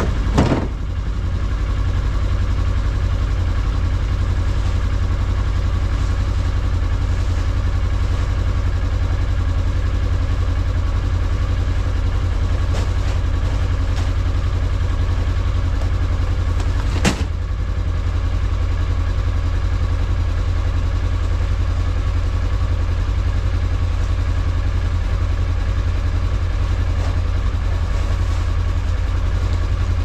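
Pickup truck engine idling steadily. Sharp thumps just after the start and about 17 seconds in, the second as a bag of water-softener salt is dropped into the truck's plastic bed liner.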